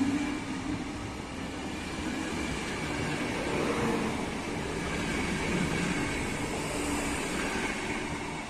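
Passenger train coaches rolling past close by: steady wheel-on-rail noise with a low hum, easing slightly near the end as the last coach goes by.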